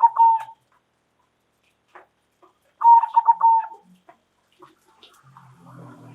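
Zebra dove (perkutut) cooing: the tail of one call at the start, then a full call of several quick rolling notes about three seconds in. A faint low sound begins near the end.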